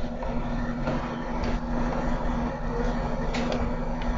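A steady low hum with a rushing noise behind it, and a few faint, light clicks.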